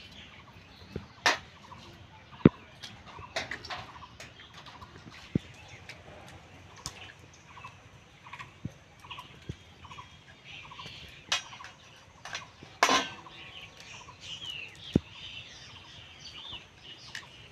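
Scattered sharp taps and clicks of eggs being cracked open over a steel bowl and brinjal stems being trimmed against a boti blade. Poultry call in the background with a run of short repeated notes in the middle, and some bird chirps near the end.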